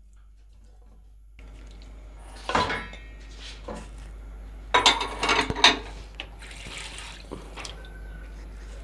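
Raw bone-in chicken pieces dropped into a stainless steel pot: wet slaps and clatter against the metal. The sound comes in two main bursts, about two and a half seconds in and again around five seconds in.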